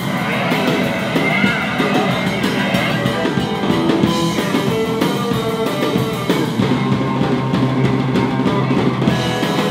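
Rock band playing surf/garage rock: electric guitar over bass and a drum kit, with steady drum and cymbal hits.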